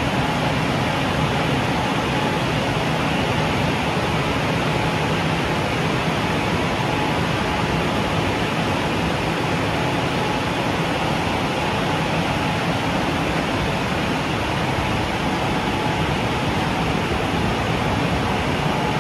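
WashTec SoftCare Bravo rollover car wash's drying blowers running: a steady, even rush of air with a faint constant whine.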